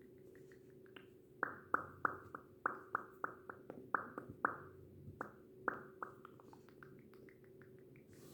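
ASMR popping and clicking sounds close to the microphone: about a dozen sharp pops between roughly one and a half and six seconds in, each with a brief ringing tail that drops slightly in pitch, and fainter clicks before and after.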